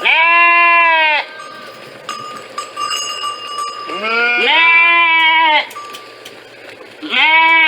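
Sheep bleating: three loud calls, the middle one longer, with two voices overlapping.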